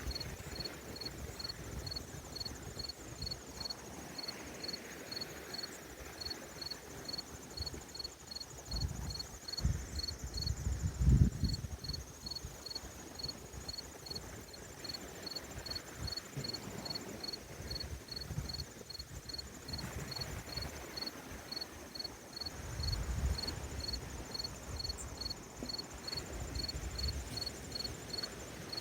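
Crickets chirping steadily, an even high chirp about three times a second, with a fainter higher insect trill behind. A low rumble swells twice, the louder one about eleven seconds in.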